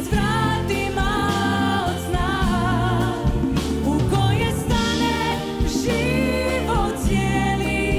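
A woman singing with a live band of drum kit, congas, guitars, bass and keyboard, holding long notes with vibrato.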